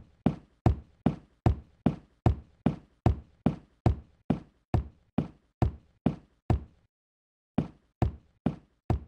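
Footstep sound effect for an animated walking figure: crisp knock-like steps, about two and a half a second, that stop for about a second near seven seconds in and then carry on.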